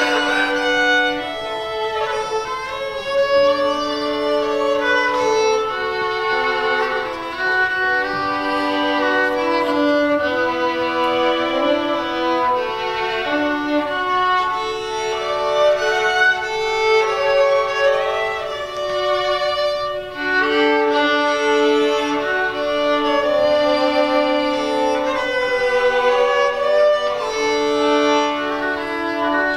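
Two violins playing a bowed duet, with sustained notes and interweaving lines.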